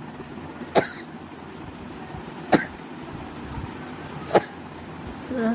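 A person sneezing three times, short sharp sneezes nearly two seconds apart. The sneezes are set off by tickling the inside of the nose with a thin stick.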